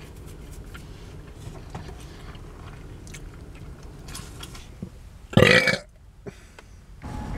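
A man's loud burp, about half a second long, after sips of carbonated soda through a straw.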